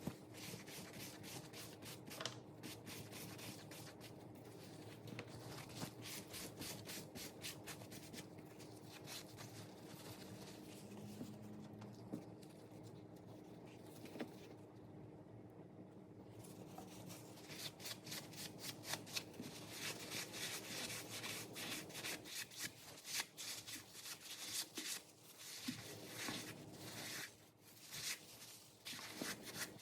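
Rapid, repeated rubbing strokes by hand over a leather wallet, with a short quieter pause about halfway through.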